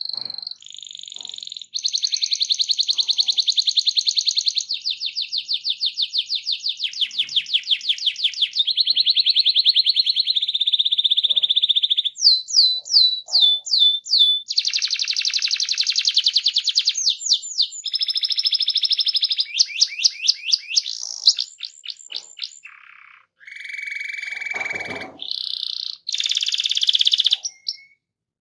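Domestic canary singing a long, rolling song: very fast trills of repeated notes that change pattern every few seconds, with runs of quick falling whistles, a brief break about 23 seconds in, and stopping just before the end.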